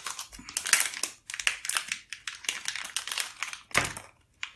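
Small package wrapping crinkling and rustling in the hands as it is unwrapped to get at a chip inside. It is a quick, irregular run of crackles that thins out near the end.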